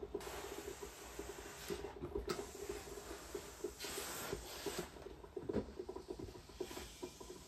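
Steam iron hissing in bursts as it presses down on a damp pressing cloth over crocheted wool motifs, steaming them so they relax and open out: a long hiss near the start, another in the middle and a short one near the end. A fine, rapid crackling runs underneath throughout.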